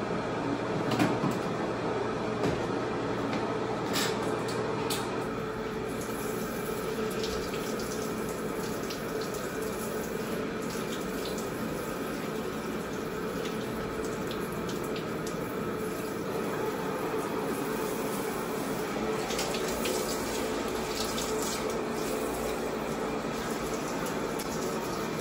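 Handheld shower head running, spraying water onto a dog in a tiled wash basin: a steady rush of water, with a few short knocks in the first few seconds.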